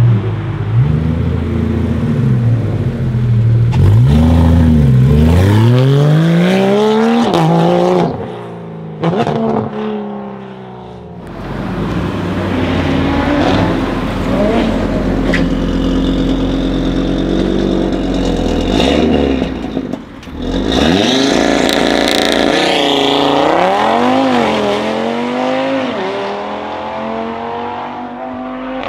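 Porsche 911 GT3 RS's flat-six accelerating hard, revving up through several gears as it passes. Then an Audi RS3's turbocharged five-cylinder running and revving as it accelerates away, its pitch rising and falling through the shifts.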